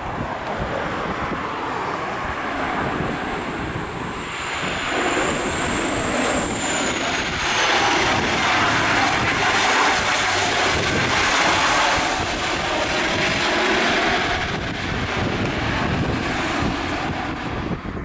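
Airliner engines on a landing approach passing close by: a steady rush of engine noise that swells to its loudest midway and eases off again, with a high thin whine gliding slightly downward a few seconds in.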